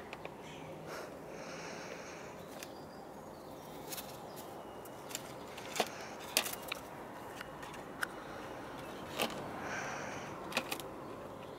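Young kittens playing on a plastic tub and a wooden post: a handful of light, sharp taps and scratches of claws on plastic and wood, scattered through the second half, with a few short rustles.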